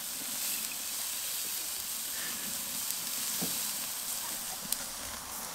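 Bratwursts and burger patties sizzling on the grate of a charcoal kettle grill: a steady hiss, with a single sharp pop near the end.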